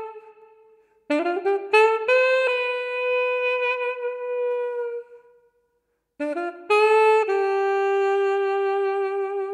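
A carrot saxophone, made from two carrots drilled together with finger holes, played in two phrases. Each phrase is a few quick short notes rising into a long held note, with about a second of silence between the phrases.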